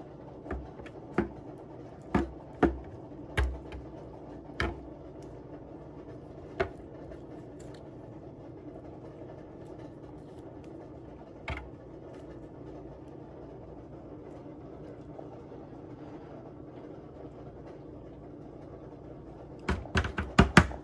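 Hands rubbing barbecue sauce over a rack of ribs in a pan: scattered sharp sticky clicks and taps, most of them in the first few seconds and a quick run of them near the end, over a steady low hum.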